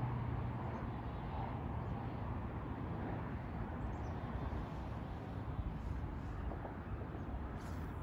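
Steady outdoor background noise on open water: an even, low rush with no distinct event.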